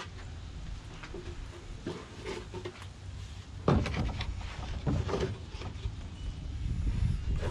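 Strips of OSB board knocking and sliding against an OSB tabletop as they are handled: a few separate wooden knocks, the loudest about three and a half seconds in, over a steady low rumble.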